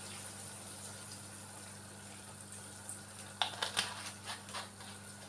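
Pancit broth simmering in a frying pan on a gas stove, steady and low. About three and a half seconds in comes a quick run of six or so light clicks and knocks in the pan.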